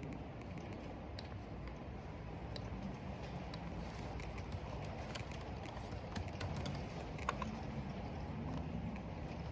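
A computer keyboard being typed on, the keys clicking irregularly several times a second, over a steady rush of rain and wind.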